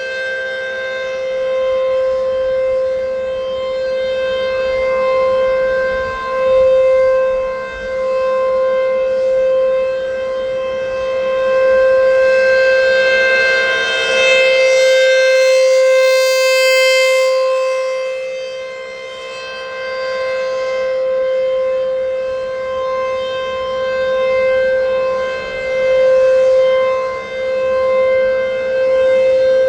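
American Signal T-135 electronic warning siren sounding a steady test tone on one unchanging pitch, swelling and fading in loudness every few seconds. It is running on rectifier power.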